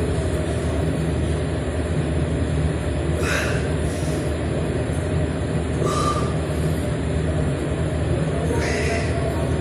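A steady low rumbling hum, with a brief sharper sound about every three seconds.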